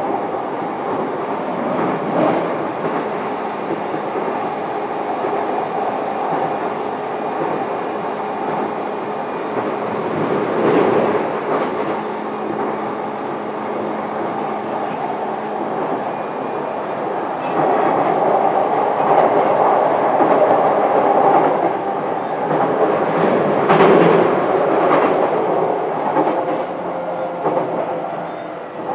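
Running noise of a JR East E233-7000 series electric train heard from inside a motor car at speed: a steady rumble of wheels on rail and running gear. A few sharp knocks come over the track, and the noise swells for several seconds just past the middle.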